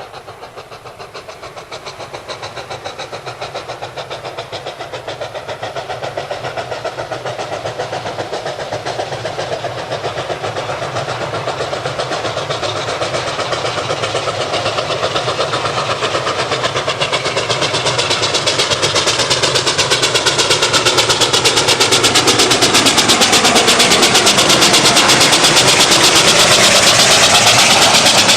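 Canadian Pacific 1293, a 4-6-2 Pacific steam locomotive, working an excursion train, its exhaust beating in a rapid, even rhythm that grows steadily louder.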